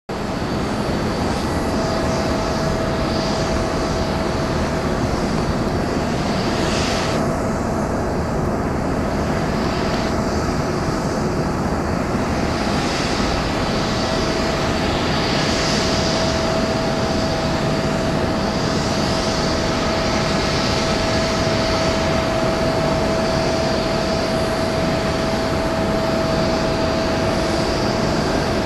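Jet engines of an Airbus A330 airliner on its takeoff run: a steady rushing noise with a steady whine running through it, the whine growing stronger about halfway in.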